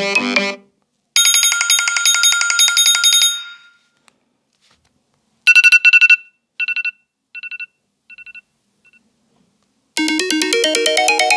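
iPhone 13 Pro built-in ringtones played one after another. A quick, shimmering electronic ringtone plays for about two seconds and fades. After a pause, a short two-note electronic beep pattern repeats more and more quietly, like an echo, and about ten seconds in a new melodic ringtone begins.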